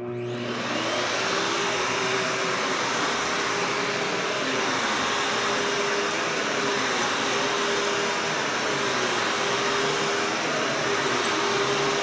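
Hoover Hushtone upright vacuum cleaner switched on, its motor spinning up within the first second, then running steadily with an even hum while it is pushed over carpet.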